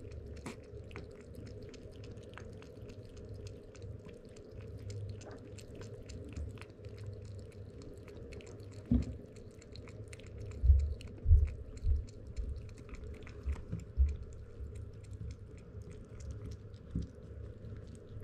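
A kitten crunching dry kibble: many small crisp clicks, with a few dull low thumps between about nine and fourteen seconds in.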